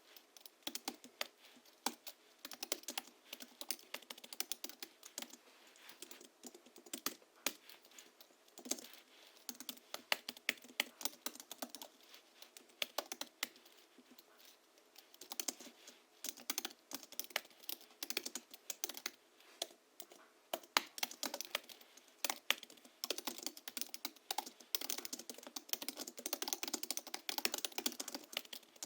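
Steady typing on a Hansung GHL-5X keyboard tuned with lubricated springs (Krytox 103/107 mix), 50 g rubber domes and a sound-absorbing sponge in the case, giving a soft clacking key sound. The keystrokes come in quick irregular runs with a couple of brief lulls.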